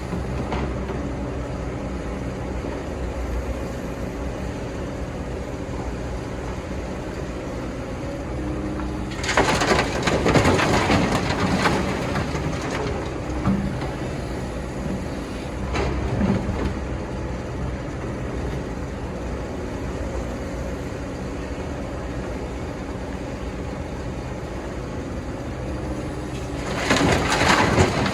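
Excavator engine running steadily. Twice it is joined by louder, rough noisy stretches: about nine seconds in for some three seconds, and again near the end.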